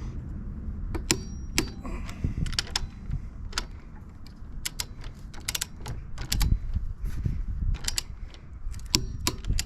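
Torque wrench ratcheting in short, irregular runs of sharp clicks while the front brake caliper mounting bolts are tightened to 45 Nm.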